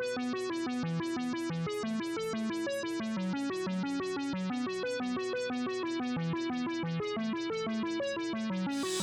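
Background music: an electronic keyboard tune of quick, evenly spaced notes, with a rising hiss coming in near the end.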